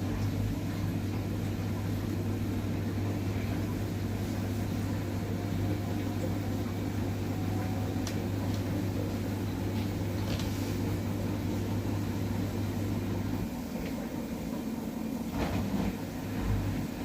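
Samsung washing machine in the spin stage of a normal cycle: the drum spins with a steady low hum that drops away about 13 seconds in, followed by uneven low rumbles near the end.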